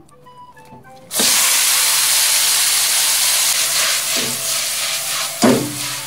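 Drained, wet spaghetti hits hot oil in a stainless steel frying pan and sizzles loudly, starting suddenly about a second in, with a sharp knock of the pan near the end.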